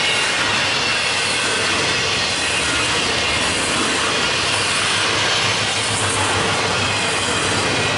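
Union Pacific double-stack intermodal train's container well cars rolling past, a steady, unbroken wheel-on-rail noise.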